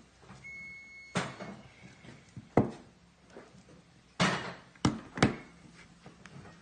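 A phone and its charging cable being handled on a wooden table: several sharp clicks and knocks, the loudest about two and a half seconds in, then three more in quick succession between four and five and a half seconds. A short, high, steady tone sounds briefly about half a second in.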